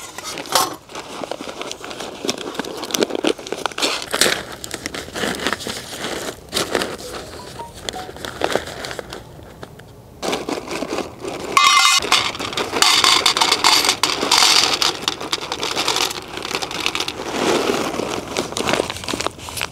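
Plastic pasta bag crinkling as it is handled, then dried tortellini poured out of it into a small metal pan, a louder stretch of crinkling and rattling from a little past halfway.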